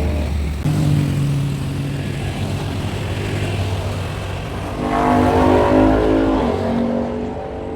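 Kymco X-Town scooter engine running steadily while being ridden. It picks up and revs higher about five seconds in, then eases off near the end.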